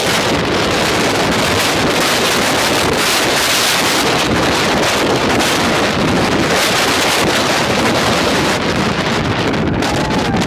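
Jet airliner's twin engines at takeoff thrust: loud, steady jet blast buffeting the microphone with wind as the plane rolls away down the runway.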